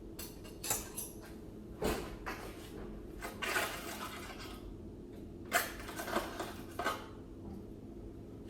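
Serving utensil clinking and scraping against a pan while roasted Brussels sprouts are lifted out onto a plate: a string of sharp knocks with a longer scrape a few seconds in.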